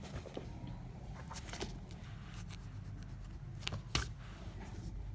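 Faint handling noise from the notebook and pencil: soft rustles and a few light taps, the sharpest about four seconds in, over a low steady hum.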